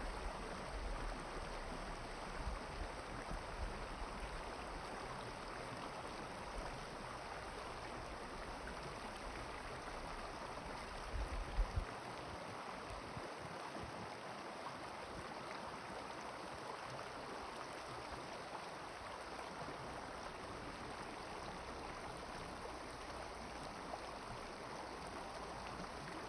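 Steady rushing of a flowing river. A few brief low bumps occur in the first half, the loudest about eleven seconds in.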